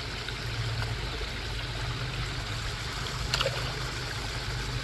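Garden koi pond waterfall: water splashing and trickling steadily into the pond, with a low steady hum underneath and one short click a little past three seconds in.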